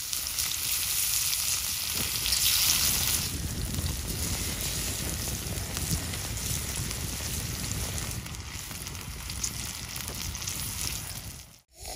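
Sliced wild mushrooms and red chili sizzling as they fry on a flat stone over a wood fire: a steady hiss with fine crackles and a low rumble underneath. It is loudest two to three seconds in and cuts off just before the end.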